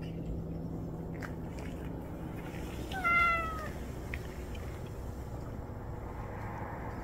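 A cat meows once, about three seconds in: a single short call that falls slightly in pitch.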